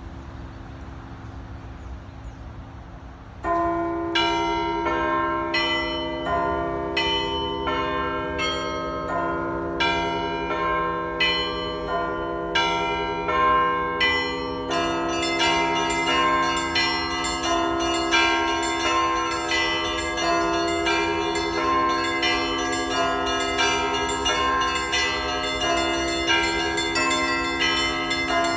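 Orthodox church bells ringing. After a few seconds of steady hiss, bells strike one after another a little more than once a second, each ringing on. About halfway through, more bells join in a dense, continuous peal.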